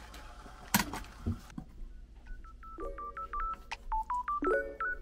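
Kitchen handling noise with a sharp knock about a second in, as a knife cuts into a plastic bag of chicken breast on a wooden cutting board. The live sound then drops out and light background music of short, clipped notes starts about two seconds in.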